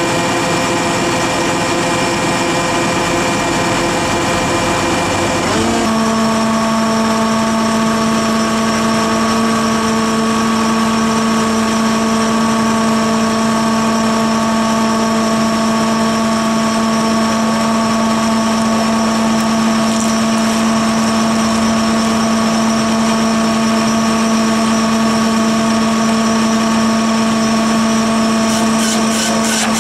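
Engine of the machine driving a hydraulic stump auger, running steadily with a constant hum; its tone changes abruptly about six seconds in and then holds. Near the end a faint rapid rattling begins as the auger starts to bite into the stump.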